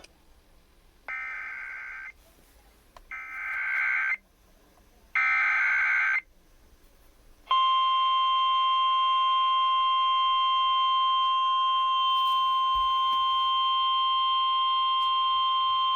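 Emergency Alert System signal opening a tornado warning: three short bursts of warbling SAME data header about a second apart, then a long, steady, high attention tone that cuts off suddenly.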